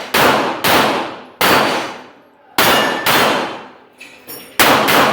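A string of 9mm pistol shots fired at an uneven pace, about six loud reports, each with a long echoing tail. Two fainter pops come shortly before the last shot.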